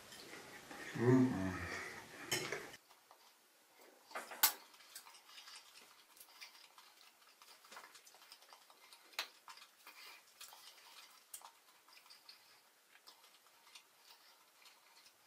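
Metal fork clinking against a plate while eating, with one sharper clink about four and a half seconds in, then a few faint scattered clicks over near quiet. A short low pitched sound comes first, in the opening couple of seconds.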